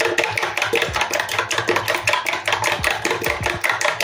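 Fork whisking raw eggs in a bowl: a rapid, steady clatter of the fork striking the bowl, about eight clicks a second.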